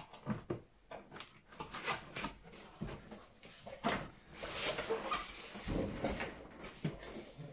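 Cardboard box being opened: packing tape slit with a knife, the flap pulled open and the inner box slid out, making a string of scrapes, rustles and knocks of cardboard.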